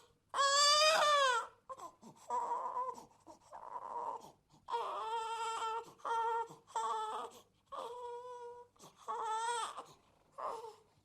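Baby crying in about nine short cries with brief gaps between them, the first and loudest rising then falling in pitch.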